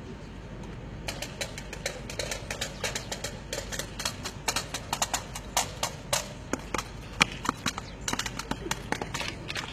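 A drill squad's hand slaps and boot stamps on pavement: many sharp, uneven claps and taps in quick succession, starting about a second in, over a steady low hum.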